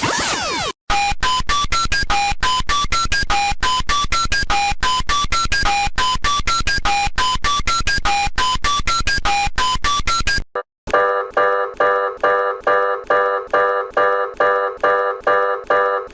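Synthesized emergency-alert tones: a rapid repeating melody of short beeps stepping up and down in pitch, about five notes a second. After a brief gap, near the end, it gives way to a pulsing electronic chord, about three pulses a second, each dying away.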